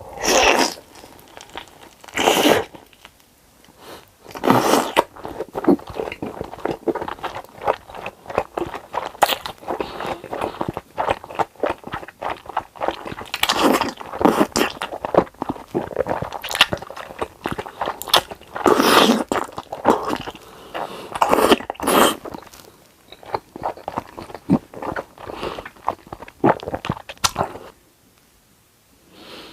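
Close-miked eating: loud crunchy bites into crisp food, each followed by a run of moist chewing clicks. The chewing quietens near the end.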